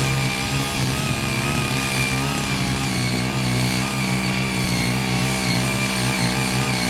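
Small engines of walk-behind power tillers running steadily while their rotary tines churn through soil.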